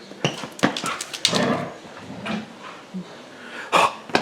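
Siberian husky making short excited whining, grumbling vocal sounds while playing, mixed with several sharp knocks and scuffs, the loudest near the end.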